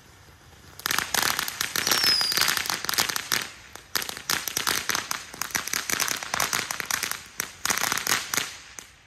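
Fireworks crackling: a rapid, dense run of sharp pops starts about a second in and goes on for about eight seconds. It dips briefly twice, then stops abruptly near the end.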